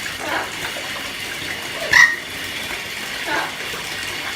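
Water running steadily from a tap or shower, with one short, sharp, loud sound about two seconds in.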